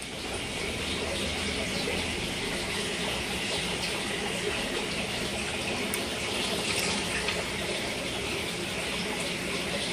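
Steady rush of running water from an aquarium's filtration, an even hiss with no breaks.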